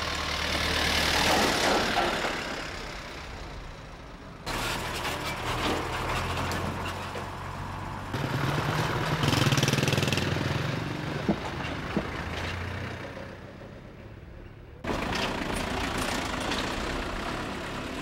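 Road vehicles, a light truck among them, driving over a railway level crossing with their engines running. The sound breaks off and starts anew several times, and two sharp knocks come a little past the middle.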